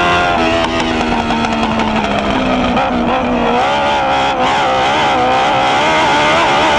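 Dwarf race car's engine at racing speed, heard from onboard the car. The revs drop in the first second, waver at a lower pitch through the middle, then build again toward the end.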